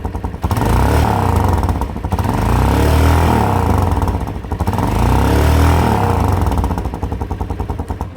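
Italika DM200 motorcycle's single-cylinder engine revved and let fall back about three times, its exhaust note a little deeper and hoarser through a muffler drilled with three small holes, with a rumble as the revs drop off.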